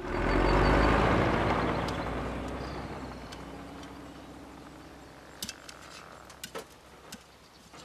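Cartoon sound effect: a loud rushing noise that swells up in under a second and then slowly dies away over several seconds, with a few faint clicks near the end.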